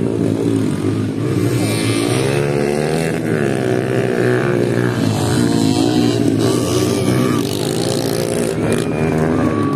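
Motocross dirt bike engines revving hard as the bikes race around a dirt track. Several engines overlap, their pitch rising and falling again and again with throttle and gear changes, over a steady low drone.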